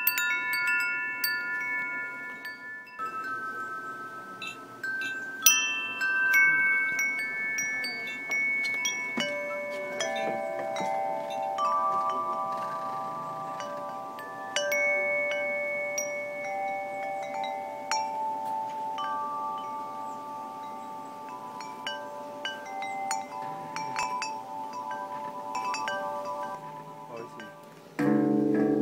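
Metal tube wind chimes ringing as they are struck at irregular moments. Each strike gives a clear, long-lasting tone, and several tones at different pitches overlap. From about ten seconds in, lower notes join the higher ones.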